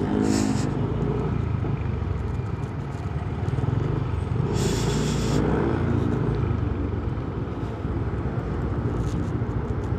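Yamaha scooter ridden through city traffic: a steady low rumble of engine and road. Two short hisses cut in, one right at the start and one about five seconds in.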